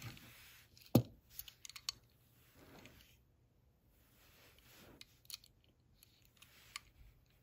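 Handling of a small Hot Wheels die-cast car (Cadillac Elmiraj): one sharp click about a second in as it is picked up, then scattered light clicks and soft rustles as it is turned over in the fingers.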